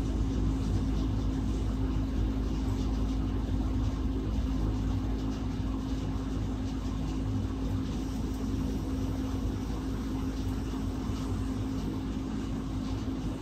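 Steady low mechanical hum of shop equipment, a constant drone with a fixed pitch over a low rumble.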